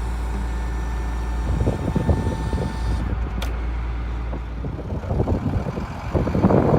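1996 International 4900 bucket truck's diesel engine running with a steady low hum and a thin whine. About a second and a half in, an irregular rough rattling noise joins it, with a single sharp click midway, and it grows louder near the end.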